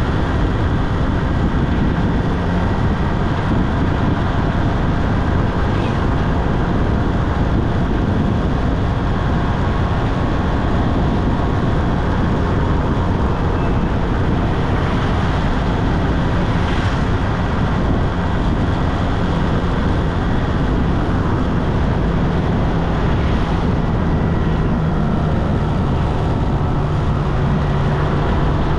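Motorcycle riding at road speed: the engine runs steadily under the rush of wind on the microphone, and the engine hum grows stronger near the end.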